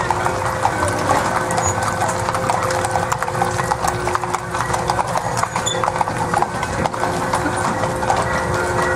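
Hooves of several horses clip-clopping on a paved street as they walk past, a dense, irregular patter of hoof strikes.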